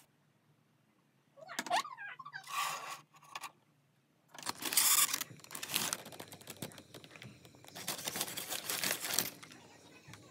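Paper bakery bags rustling and crinkling in several loud bursts as pastries are rummaged out of them, starting about four seconds in. Before that, a short sliding squeal and a brief rustle.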